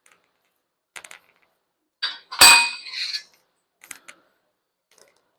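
Metal knocking on metal: a few light taps, then one loud ringing clang about two and a half seconds in, then a couple more light knocks, typical of a steel tool or piece set down on a steel fabrication table.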